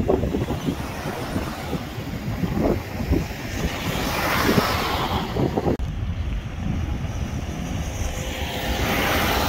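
Cars driving past close by, tyre and engine noise swelling and fading as one passes about four seconds in and another near the end, with wind buffeting the microphone.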